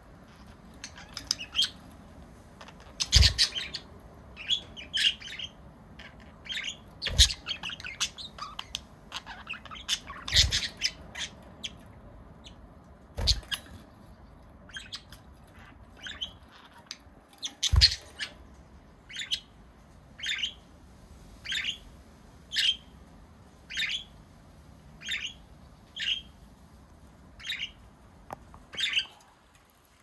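Pet budgerigars chirping and chattering in short, high calls, with five sharp knocks in the first half. In the second half a short call repeats about once a second.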